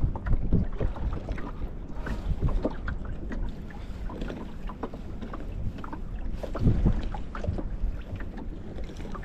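Small waves lapping and slapping irregularly against the hull of a small fishing boat, with wind buffeting the microphone.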